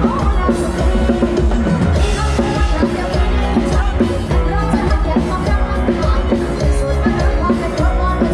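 Loud live lam sing band music with a steady, driving drum and bass beat.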